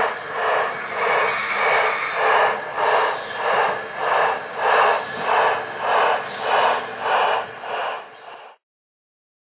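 Sound-equipped model steam locomotive chuffing steadily at about two chuffs a second, the chuffs coming through a small speaker. It fades over the last second and then stops suddenly.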